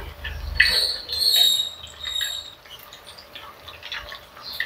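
Kitchen tongs clinking and scraping in a frying pan while fried meat is lifted out. There is a sharp clink about half a second in and high, squeaky scrapes just after, then lighter knocks.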